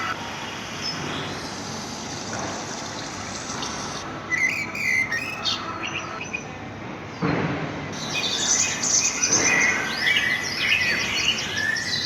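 Birds chirping over steady background noise. There is a short run of calls about four seconds in, and livelier chirping through the last four seconds.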